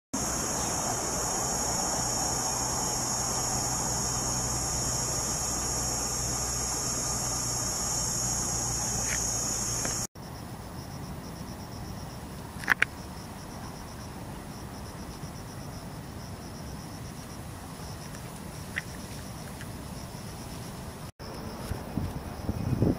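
Insects droning steadily and loudly at a high pitch, cutting off suddenly about ten seconds in to a much fainter pulsing insect trill with a few short chirps. Near the end, wind rumbles on the microphone.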